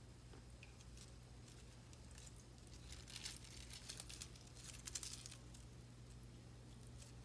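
Faint crunching and rustling as an Egyptian tortoise walks over loose gravel substrate among leafy plants, in two short spells about three and five seconds in. A low steady hum runs underneath.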